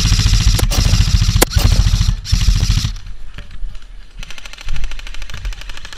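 Airsoft guns firing rapid full-auto bursts. A loud, close burst lasts about the first three seconds, then fainter bursts carry on from further off.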